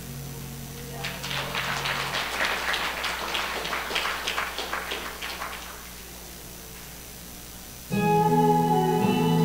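Instrumental backing track played back through the hall's sound system. A held low note ends about two seconds in, followed by a few seconds of rapid, clap-like noise. About eight seconds in, the next track starts loudly with sustained chords.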